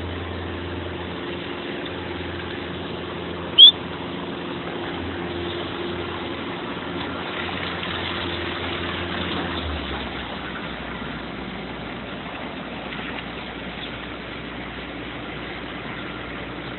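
Steady wash of rain and street traffic on a wet street, under a low engine hum that drops away about ten seconds in. A brief, sharp high-pitched squeak, the loudest sound, cuts in a few seconds in.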